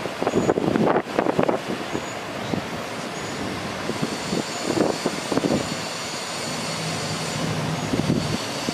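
Cummins 6.7L ISB diesel engine of a bucket truck running steadily. Wind gusts buffet the microphone, loudest about a second in and again around five seconds.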